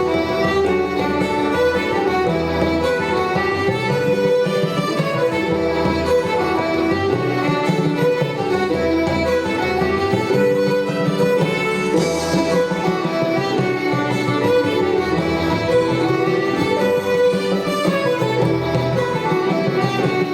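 Background music led by a fiddle with guitar accompaniment, in a traditional style, playing at a steady level.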